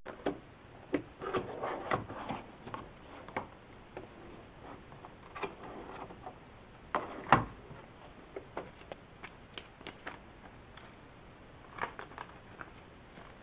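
Cardboard and paper packaging being handled: a box slid out of its cardboard sleeve, the lid opened and a paper sheet pulled out, heard as scattered taps, knocks and rustles, the loudest knock about seven seconds in.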